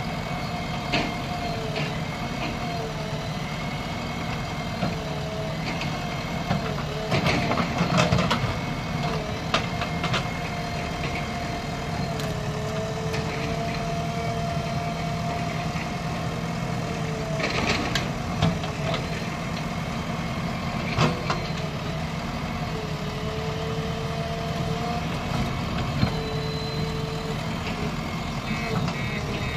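JCB 3DX backhoe loader's diesel engine running steadily under work, with a steady whine. Knocks and clatters of the loader bucket on soil and stones come about seven to eight seconds in, around eighteen seconds and again around twenty-one seconds.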